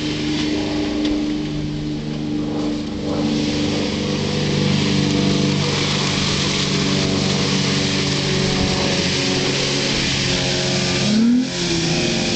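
2007 Jeep Wrangler JK's 3.8-litre V6 engine running steadily under load through deep mud; near the end it revs up briefly and then drops off.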